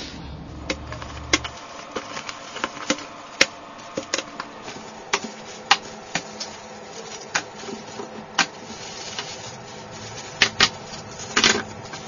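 Bubble-wrap packaging and a cardboard box rustling and crinkling, with irregular sharp plastic clicks and clacks as Rubik's cubes are unpacked and set down on a wooden table. A longer rush of rustling comes near the end.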